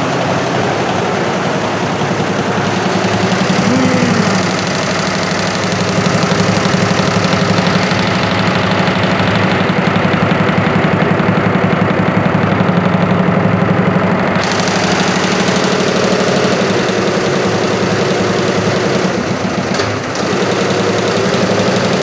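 22-head computerised embroidery machine running, its many needle heads stitching at once with a loud, steady, rapid clatter.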